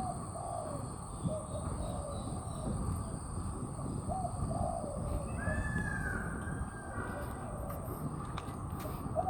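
Birds calling in a bird park aviary: short low calls repeat throughout, and one longer, higher call comes about five and a half seconds in, over steady background noise.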